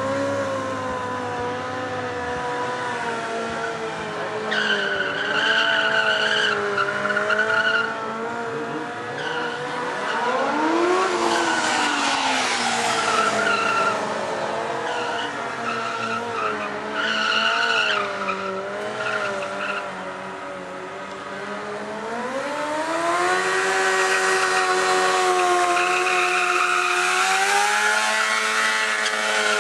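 Sport motorcycle engines revving hard during stunt riding, the engine note wavering and then climbing and holding high about three quarters of the way through. Several shrill bursts of tyre squeal come and go as the tyres slide on the asphalt.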